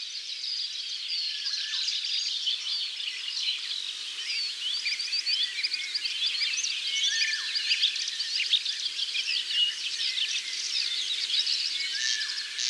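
Many birds chirping and singing at once: a dense chorus of short high chirps with a few longer whistled notes.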